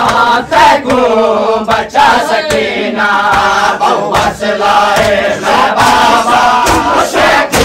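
A crowd of male Shia mourners chanting a noha together, with sharp slaps of hands striking bare chests (matam) keeping a beat under the chant.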